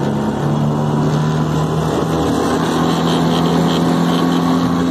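Tohatsu 15 hp four-stroke outboard running at full throttle, pushing a heavy aluminum jon boat. Its pitch climbs slightly early on and again about two seconds in, then holds steady over the rush of water and spray along the hull.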